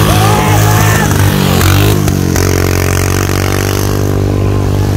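Motorcycle engine running loudly and steadily, its pitch dipping and recovering briefly about two seconds in, with a voice heard briefly in the first second.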